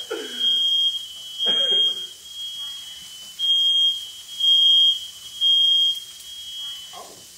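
Smoke alarm sounding: a high, piercing single-tone beep about half a second long, repeating, with three beeps in a row near the middle and then a pause. It has been set off by smoke from cooking on a gas stove.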